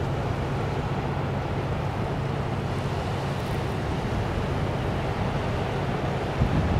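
Steady low drone of a large ship's engine passing on the river, with wind noise on the microphone.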